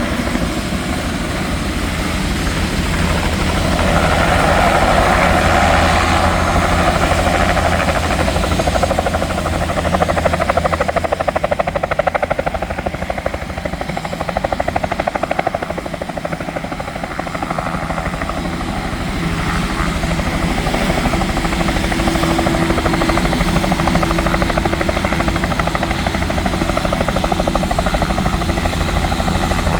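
Helicopter running close by: a steady, rapid chop of the main rotor blades over the turbine, swelling a little and easing again but never stopping.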